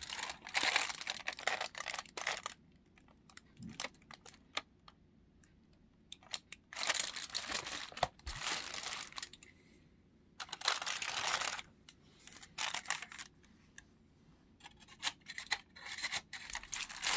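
Aluminium foil crinkling as it is peeled open by hand, in four bursts of rustling with small clicks and handling noises between.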